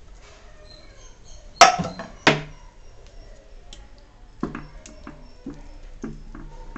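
A spatula knocking and scraping against a steel plate while thick, sticky halwa is spread and pressed flat: two sharp clacks about a second and a half in, then a run of softer taps.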